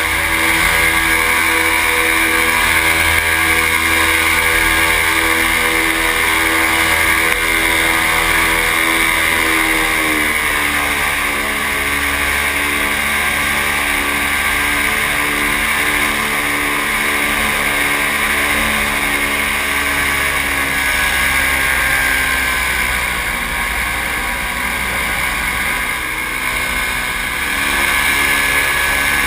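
Paramotor engine and propeller running steadily in flight; the engine note drops in pitch about ten seconds in and then holds, with wind rumbling on the microphone underneath.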